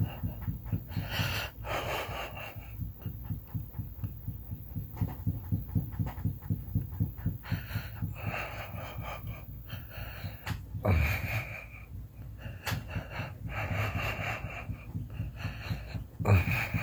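A man snoring in his sleep: a steady low fluttering rattle with noisy, wheezy breaths every few seconds, the loudest near the end.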